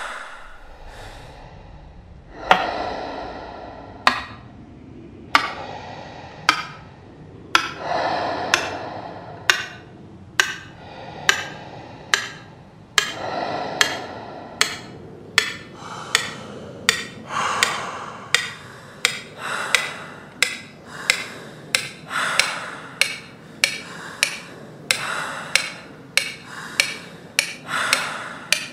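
Film soundtrack: sharp percussive knocks that quicken from about one a second to nearly two a second, over recurring swells of sustained tones.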